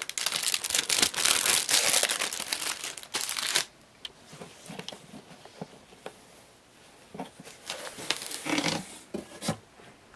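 Packing material inside a cardboard box crinkling and rustling loudly for about three and a half seconds as hands dig in. Softer rustles and light knocks follow, with another short rustle near the end as the wrapped box is worked out of the carton.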